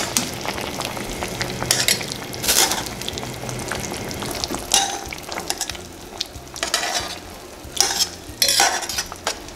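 Chicken pieces being turned over with a metal utensil in a pot of sauce cooking on low heat. The sauce sizzles steadily, broken by several short scrapes and splashes as the pieces are lifted and flipped.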